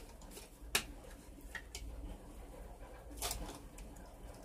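Light metallic clicks and a brief rattle from handling a metal hurricane lantern as a candle holder is twisted into its base: one sharp click about a second in, a couple of small ticks, and a short rattle near three seconds, over a faint low hum.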